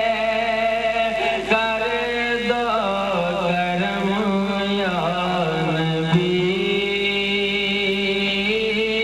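A man singing a manqabat, an Urdu devotional song, into a microphone over a PA, in long held notes with wavering ornaments.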